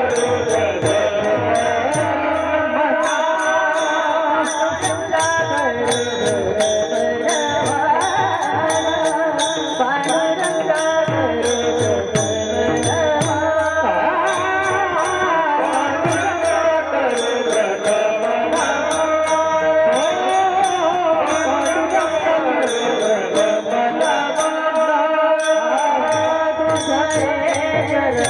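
Devotional kirtan music: a melody that slides up and down over a steady held drone, with small hand cymbals striking a regular beat.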